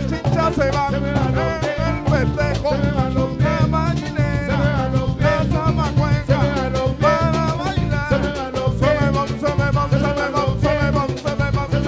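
Live band playing a Latin dance song: congas and hand percussion with acoustic guitar, and a man singing lead at the microphone.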